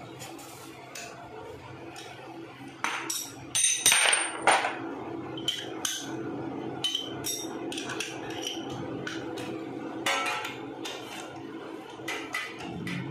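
Metal tools clinking and knocking: a steel T-handle socket wrench being fitted onto and turning a bolt on a motorcycle's rear frame. Scattered sharp clanks, the loudest cluster about four seconds in, over a faint steady hum.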